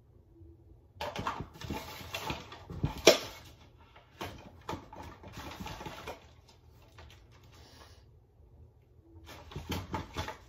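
Someone rummaging through a pile of belongings: rustling, with clattering knocks of small objects being picked up and set down, the sharpest knock about three seconds in. There is a quieter stretch, then more knocks and rustling near the end.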